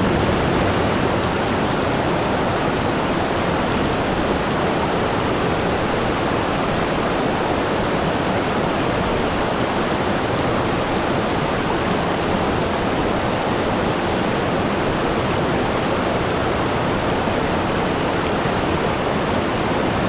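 Steady, even rushing hiss with no tone or rhythm, starting abruptly out of silence.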